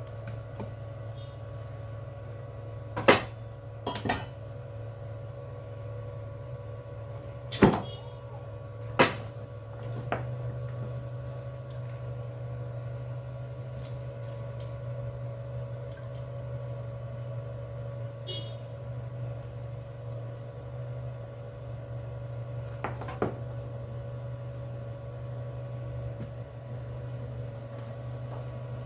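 A motor running with a steady hum, slightly louder about a third of the way in, with a few sharp metallic knocks scattered through, the loudest two near the start.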